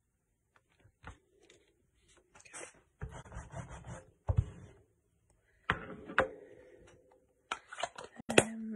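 A clear acrylic stamp block is handled and pressed onto card stock: a stretch of rubbing and rustling, then a sharp knock and several clicks of hard plastic against the card and the cutting mat.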